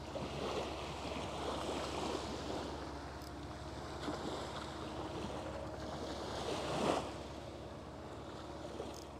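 Small waves washing up and drawing back over a pebble shore, with the loudest surge about seven seconds in.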